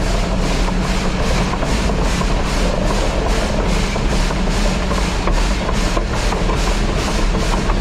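Steam locomotive running along the track, its exhaust beating in a steady rhythm of about three chuffs a second over the rumble of the wheels and running gear.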